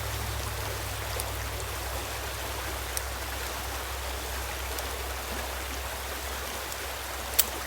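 Revolver being loaded by hand, cartridges going into the cylinder one at a time, heard as a few light clicks with a sharper one near the end. Under them is a steady background hiss with a low hum.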